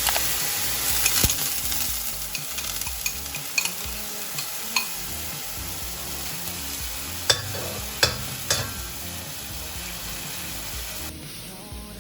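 Food sizzling in a frying pan: a steady hiss with scattered light clicks and a few sharper knocks, the hiss dropping away near the end.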